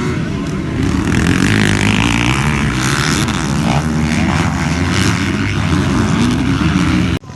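Motocross bike engine running hard, its pitch rising and falling with the throttle and gear changes. The sound cuts out abruptly for a moment about seven seconds in.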